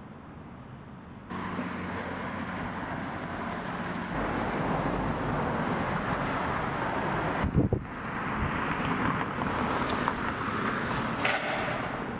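Outdoor ambience picked up by the camera microphone: a steady noisy wash of wind on the microphone and traffic, with a few low wind thumps. It jumps up abruptly about a second in and shifts again around four and seven and a half seconds.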